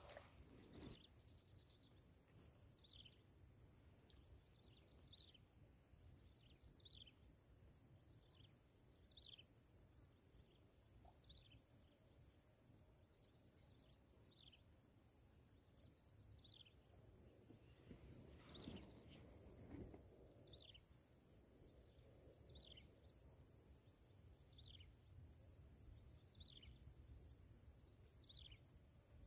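Faint outdoor quiet with a bird repeating a short, falling chirp about every two seconds, over a steady high-pitched hiss. A brief rustle of movement comes about two-thirds of the way through.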